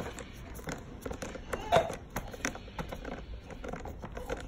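Phillips screwdriver turning a screw into the plastic frame of a baby rocker: a run of small irregular clicks and scrapes, with one louder knock a little under two seconds in.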